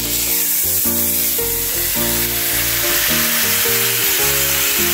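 Butterflied chicken sizzling in hot olive oil in a frying pan, a steady frying hiss, with background music playing over it.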